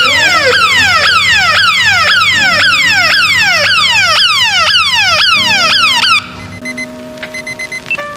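Megaphone's electronic siren sounding a rapid falling wail, about two sweeps a second. It stops about six seconds in.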